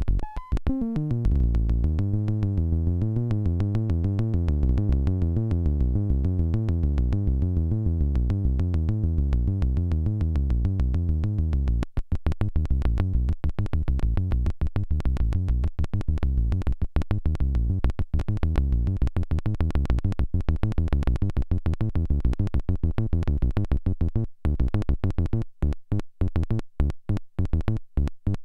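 Korg Monotribe analog synthesizer running a fast sequenced bass pattern, with a sharp click on every note that grows more prominent about halfway through. The clicking is the suspected fault: the owner thinks it is too much and that the unit may be damaged.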